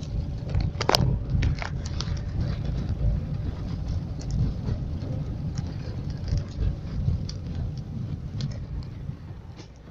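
Rainy street ambience: a steady, uneven low rumble with scattered sharp clicks of raindrops, fading near the end.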